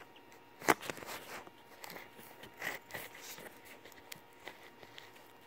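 Faint handling noises: one sharp tap or click less than a second in, then a few light scattered clicks and rustles.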